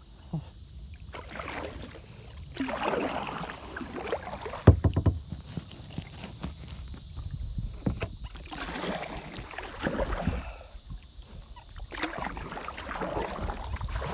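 Kayak paddle strokes splashing and dripping in the water in an uneven rhythm, with one hard knock about four and a half seconds in.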